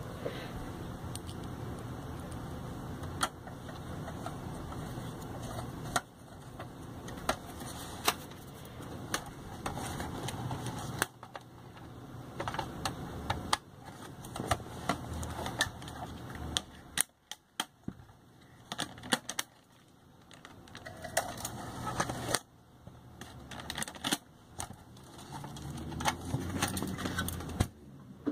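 Scattered sharp metallic clicks and clatter of a Pioneer DEH-1280MP car stereo's sheet-metal chassis being handled and worked with a screwdriver.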